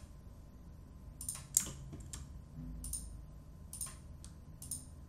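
Computer keyboard and mouse clicking: scattered, irregular clicks while software is being operated.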